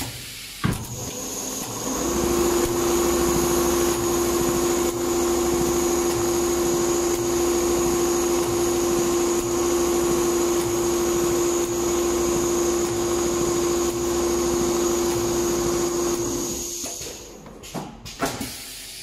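Computerized multi-head leather pattern sewing machine running and stitching leather: a steady mechanical whir with a held hum and a high whine. It comes up a second or two in and stops a couple of seconds before the end, with a click at the start and a few knocks as it stops.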